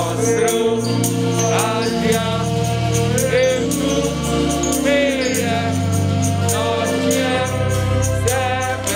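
Gospel music: a voice singing a melody with gliding notes over sustained keyboard chords and a steady percussion beat.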